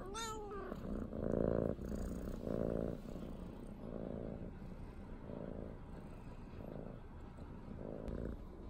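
Brown tabby cat purring while being stroked, a steady rumble that swells and fades with each breath, about once every second and a bit: she is content.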